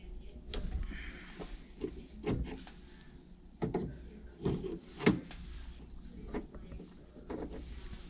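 Large wrench working the brass fitting on the copper water line of an electric tankless water heater: a series of irregular sharp metallic clicks and knocks as the connection is loosened.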